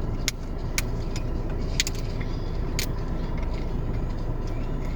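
Steady low rumble inside a car cabin, with about five sharp clicks and taps in the first three seconds.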